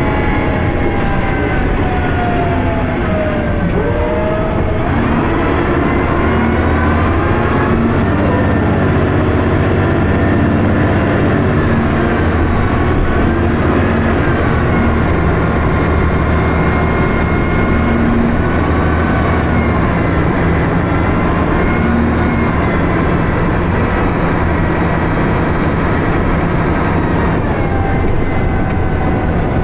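Dennis Arrow single-deck bus heard from on board: the engine running under load and the ZF automatic gearbox whining, its pitch rising and falling with road speed.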